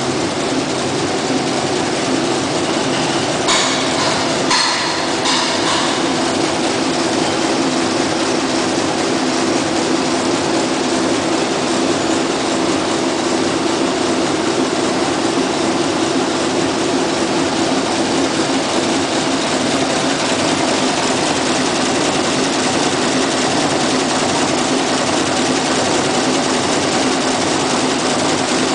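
Zipper-tape needle loom running at speed: a steady, fast mechanical clatter over a hum, with a few sharper clicks about four seconds in.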